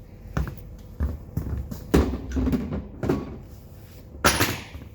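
A series of sharp knocks and clunks, about six over a few seconds, from a hand-held hydraulic crimper and its metal parts being handled after a crimp; the last near the end is a brief rattle.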